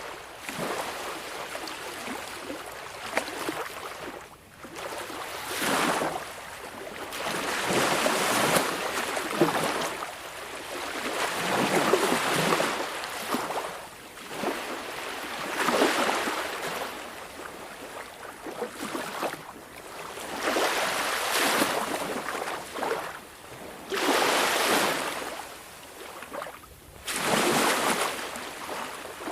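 Small sea waves washing onto a shore, the surf swelling up and dying away every three to four seconds.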